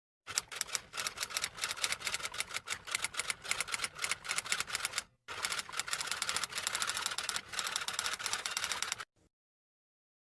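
Rapid typing on keys: a dense run of clicks for about five seconds, a brief break, then about four more seconds of clicking that stops abruptly.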